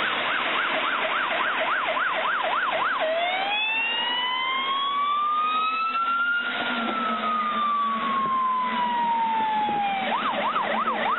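Fire engine siren, over a steady rush of noise. It starts on a fast yelp of about three sweeps a second, switches about three seconds in to a slow wail that rises and then falls, and goes back to the fast yelp near the end.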